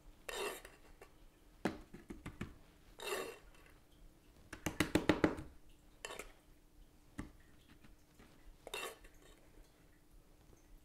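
Metal spoon scraping and clinking against a stainless steel saucepan as thick praline candy is scooped out, in short bursts every second or two, with a quick run of taps about five seconds in.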